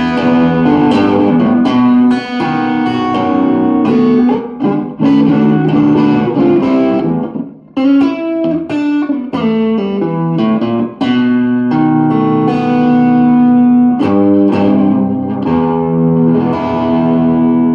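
Japanese Fender Stratocaster electric guitar played through an ENGL Gigmaster amplifier: a melodic passage of picked single notes and ringing chords, with a brief break about eight seconds in and sustained chords near the end.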